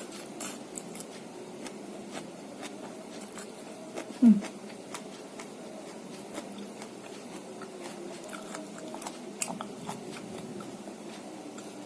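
Close-up chewing and mouth sounds of someone eating rice, fish and water spinach, with many small scattered clicks and smacks. About four seconds in there is a brief hum that drops in pitch.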